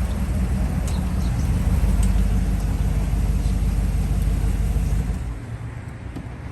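A motor vehicle's engine running, a low rumble that drops away about five seconds in.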